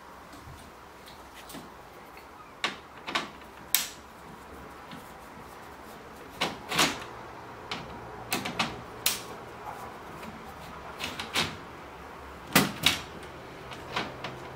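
Scattered sharp clicks and knocks, often in pairs, from a screwdriver and hands working on the sheet-metal back of a flat-screen TV and its plastic parts and cable connectors.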